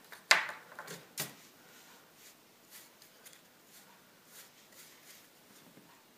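One sharp knock a third of a second in and two lighter knocks about a second in, as paintbrushes and paint materials are handled on the tabletop. Then faint taps and rustling as paint is dabbed onto a wooden crate with a brush.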